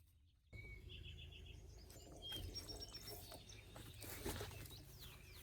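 Faint outdoor background noise that comes in suddenly about half a second in, with small birds chirping: a quick run of about five short high notes about a second in, then scattered chirps.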